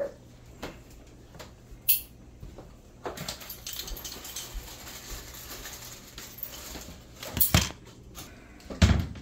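Beaten eggs poured into a hot frying pan and sizzling, with a fork clinking and scraping against the bowl as it is emptied. Two louder knocks come near the end.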